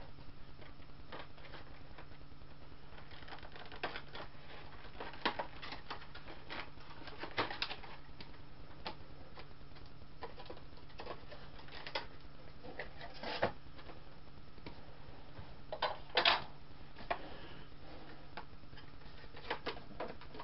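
Packaging being cut open with a box cutter and handled: scattered clicks, scrapes and crinkles of plastic and cardboard at irregular moments, over a steady low hum.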